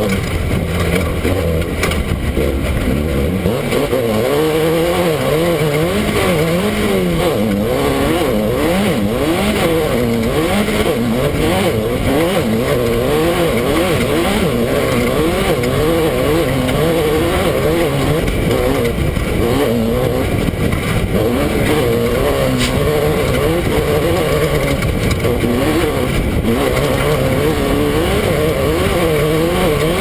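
Off-road race car's engine heard from on board at race pace, loud and continuous, its pitch rising and falling over and over as the throttle works across rough ground.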